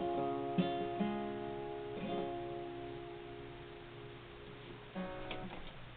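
Acoustic guitar playing the closing chords of a song: a few strummed chords ring out and slowly fade, with one last light strum about five seconds in.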